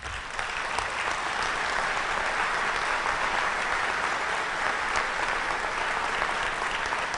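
Audience applauding: many people clapping together, building within the first second and holding steady until it fades near the end.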